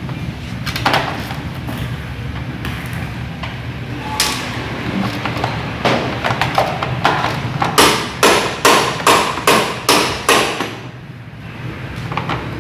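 Hammer blows on a hard object: a few single strikes, then a run of about ten quick blows, over a steady low hum.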